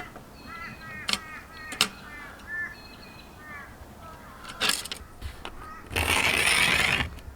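A bird giving a quick series of harsh, repeated calls over the first few seconds, with a few sharp knocks. Near the end comes a loud one-second burst of hiss.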